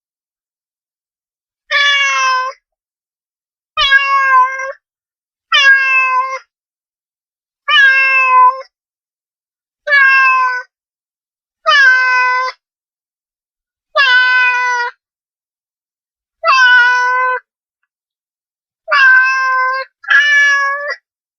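A cat meowing repeatedly: about ten separate meows, each under a second long, roughly two seconds apart, with the last two coming close together.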